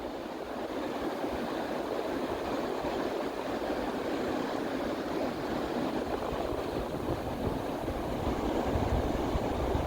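Steady rushing roar of river rapids, the Lachine Rapids' white water running constantly without breaks.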